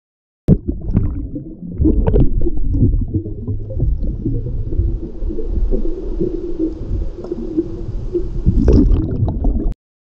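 Water sloshing and gurgling, heard underwater through a waterproof action-camera housing: a loud, muffled low rumble that starts about half a second in, with a brighter splash near the end.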